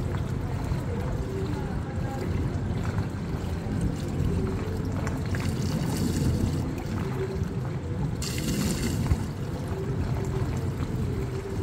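Swimming-pool water sloshing and lapping as a person moves through it chest-deep, over a steady low rumble, with a brief brighter hiss of water about eight seconds in.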